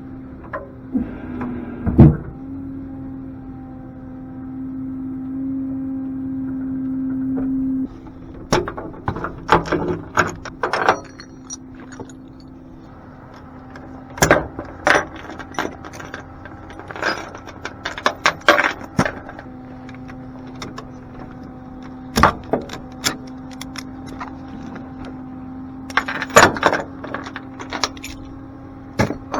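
A truck engine running with a steady hum that swells and then cuts back sharply about eight seconds in. Over it come repeated sharp knocks, clicks and rattles of hands-on work at the vehicles.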